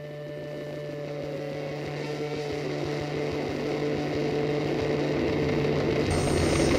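A steady engine drone growing gradually louder. About six seconds in, a high whine joins it.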